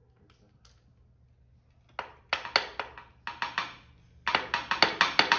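Marimba bars struck with mallets: near quiet for about two seconds, then a run of ringing wooden notes, a short pause, and a quicker run of notes.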